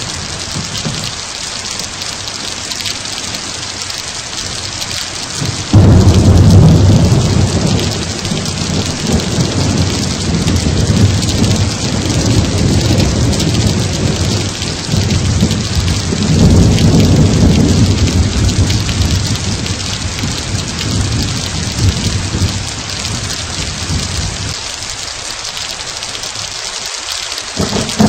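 Thunderstorm: steady heavy rain with rolling thunder. A loud thunderclap breaks in suddenly about six seconds in and rumbles on, swells again midway, and dies away near the end.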